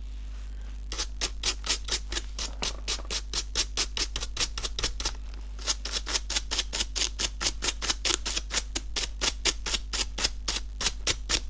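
Toothbrush bristles scrubbed down over a Velcro strap to brush out dust and hair, a quick scratchy stroke about four times a second, with a short pause midway.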